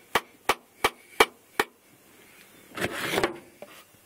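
A can of Copenhagen dip being packed: sharp taps on the can, about three a second, five times, then a short rustle a little under three seconds in.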